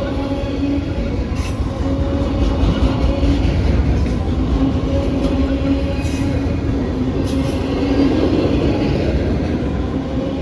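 Norfolk Southern freight train rolling past at close range: a steady, loud rumble of wheels on rail with a faint steady hum and occasional light clicks.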